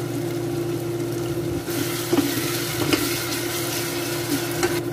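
Chopped spring onion and grated ginger sizzling in plenty of hot oil in a stainless steel saucepan. The sizzle grows louder about two seconds in, while a wooden spoon stirs and knocks lightly against the pan a few times. A steady low hum runs underneath.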